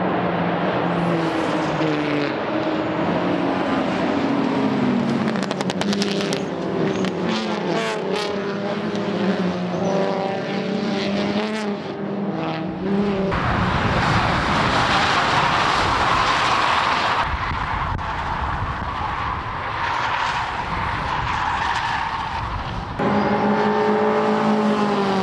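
Racing car engines revving hard as touring cars lap a circuit, the engine pitch climbing and dropping with gear changes. In the middle a louder, rushing stretch of engine and tyre noise comes as cars pass close, then several engines rev up together again near the end.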